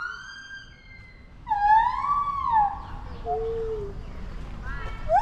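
An animal calling: long, pure-sounding calls that swoop up and then fall away, a lower shorter call, then quick rising notes starting near the end.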